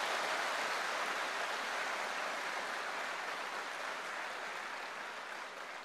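A crowd applauding steadily, slowly dying down near the end.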